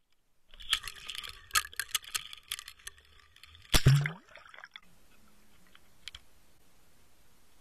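Clicking and rattling of an underwater camera being handled, then a splash as it drops into the water about four seconds in. After that, only a faint muffled hiss with a couple of small clicks.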